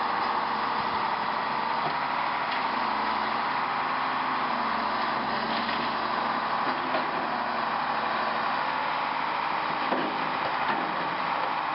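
Steady mechanical running noise, strongest in the mid range, with a few faint knocks, one a little louder about ten seconds in.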